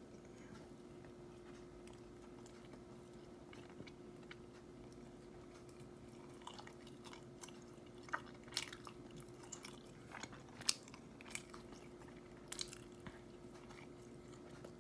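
A person chewing a mouthful of glazed cinnamon roll: soft wet mouth clicks and smacks, mostly in the second half, over a faint steady hum.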